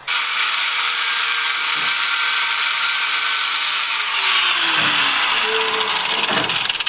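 Grinder grinding on steel flywheel bolts, a loud continuous high-pitched grinding noise that starts abruptly; about four seconds in its pitch drops as it works harder on the metal.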